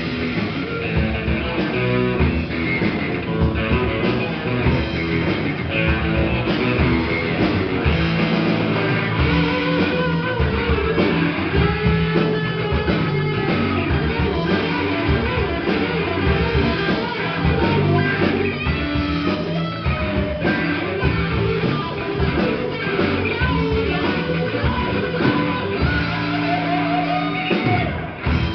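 Rock band playing live on electric guitars, electric bass and a drum kit, one continuous full-band passage.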